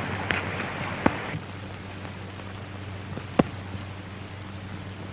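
Steady hiss and low hum of an old film soundtrack, broken by a few sharp cracks, the loudest about three and a half seconds in.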